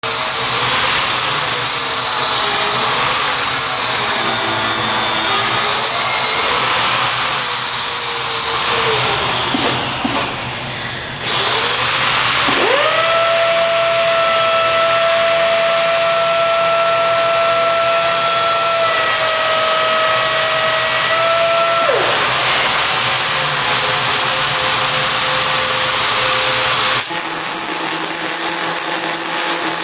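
Motoman SSA-2000 welding robot MIG welding with a weave: a continuous loud hiss, with a high whine that rises and falls every second or two for the first nine seconds. After a short dip, a whine glides up, holds steady for about ten seconds and then stops sharply. The sound thins out again near the end.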